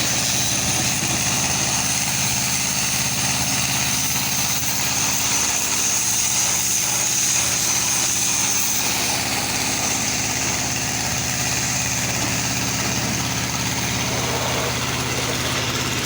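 Diesel engine of a heavy construction machine idling steadily. A high, thin whine runs over it and grows weaker about halfway through.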